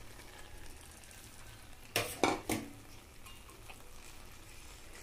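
Metal spatula knocking against a metal kadai three times in quick succession about two seconds in, over a faint sizzle of small shrimp frying with spiced mituli.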